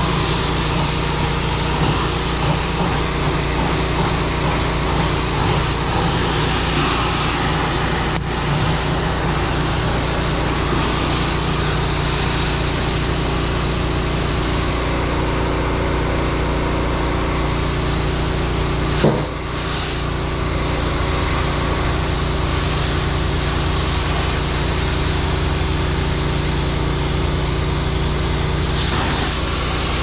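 Fire hose nozzle spraying water into a burning Bobcat skid steer, a steady hiss over the constant drone of a running engine. One sharp knock about 19 seconds in.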